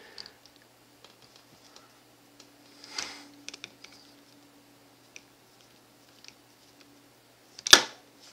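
Small clicks and scrapes of a screwdriver working at the screws of a laptop's plastic bottom panel, with a louder click about three seconds in and a sharp knock near the end.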